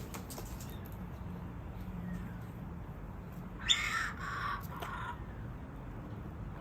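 Kookaburra giving a short burst of three harsh squawks, the first the loudest, a little under four seconds in.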